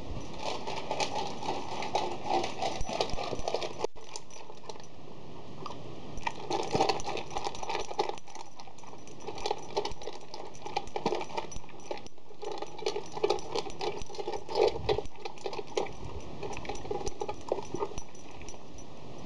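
Labrador puppy gulping dry kibble from a stainless steel bowl: rapid, irregular clattering and rattling of kibble and muzzle against the metal, with a couple of short lulls.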